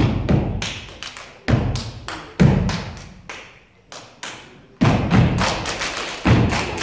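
Step team stepping in unison: rhythmic stomps and claps. Heavy low stomps land about a second and a half in, near two and a half seconds, near five seconds and again past six seconds, with quicker, lighter claps and taps between them.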